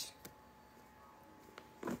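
Quiet room with a faint steady hum, broken by a light tap shortly after the start and a brief soft handling noise near the end as cardboard book packaging is handled.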